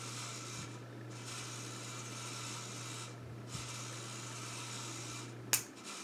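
1984 Casablanca Panama ceiling fan running, with a steady low motor hum under a soft rasping rush of air. Near the end a sharp click sounds, and the hum stops right after it.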